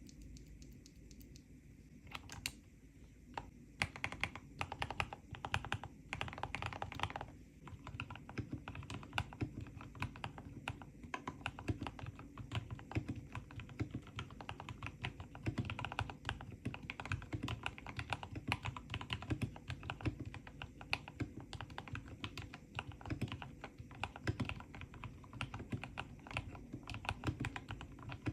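Continuous typing on a mechanical keyboard with Gateron Yellow linear switches: a steady patter of keystrokes that starts about two seconds in.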